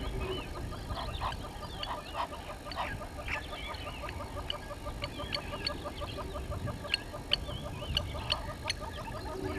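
Helmeted guineafowl calling in a steady run of repeated harsh notes, with other birds chirping and whistling over them.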